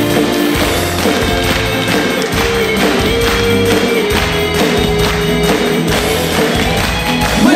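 A live band playing an instrumental passage of a song between sung verses: guitars and bass over a steady beat.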